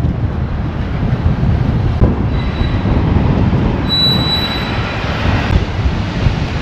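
Wind buffeting the microphone over city street noise. A high, thin, steady squeal starts about two seconds in and stops about three seconds later.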